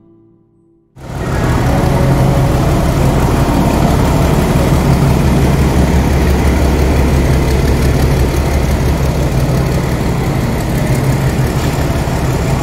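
Railway locomotive running steadily at the platform: a loud, constant low hum with noise over it, starting abruptly about a second in.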